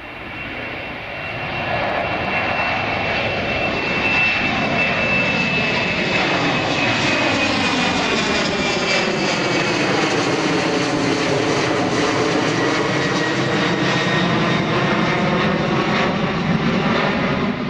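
Embraer 195 airliner's twin turbofan jet engines at climb power as it passes overhead after takeoff. The sound swells over the first couple of seconds, then holds as a steady rushing roar with a sweeping, phasing character and a high whine that slowly drops in pitch.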